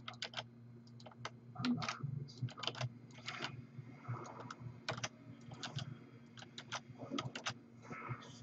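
Typing on a computer keyboard: quick, irregular keystrokes and clicks in short runs, over a faint steady hum.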